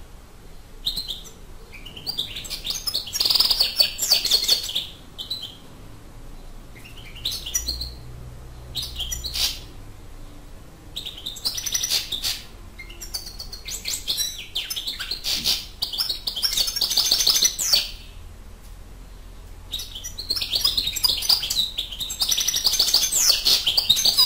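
Wild-caught European goldfinch singing in its cage: about five bursts of fast, twittering song, separated by pauses of a second or two.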